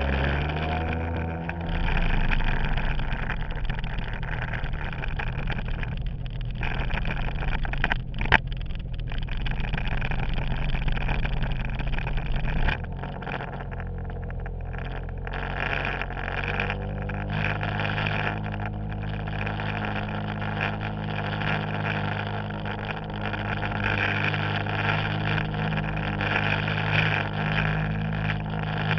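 Yamaha WaveRaider jet ski's two-stroke engine running under way, with water spray and wind rushing past. A sharp knock comes about a quarter of the way in. Near the middle the sound drops in level, and the engine then runs on at a steadier note.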